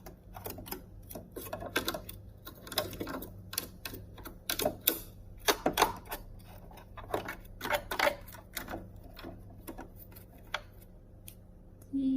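Irregular clicks, taps and short scrapes of hand cleaning on the hard plastic and metal parts of an opened Singer Quantum Stylist 9960 sewing machine; they thin out near the end.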